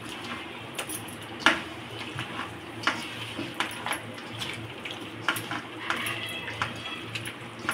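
Metal kitchen utensils and dishes clinking and knocking, about a dozen irregular strikes over a low steady room background, the loudest about a second and a half in.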